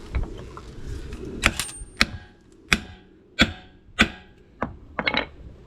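A run of sharp metallic clicks and knocks, about eight of them, roughly one every half to two-thirds of a second, with a quick double click near the end. This is metal tooling being worked on a tyre bead breaker.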